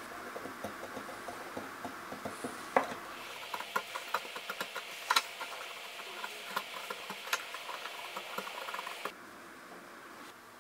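Steel chisel edge nicking and scraping around the end of a wooden dowel, raising barbed fibres so a loose dowel will grip in its hole: a string of small irregular clicks and scrapes that stops about nine seconds in.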